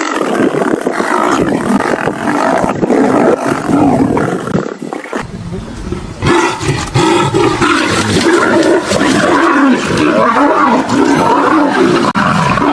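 Large wild animals roaring and growling in a long, rough stretch, with a brief lull about halfway through before it picks up again.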